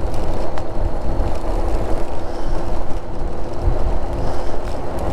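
Wind rushing over the microphone on a moving e-bike, with road and tyre rumble and a faint steady whine.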